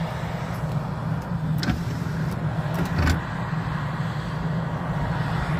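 Engine running steadily, a low drone, with a couple of faint clicks about one and a half and three seconds in.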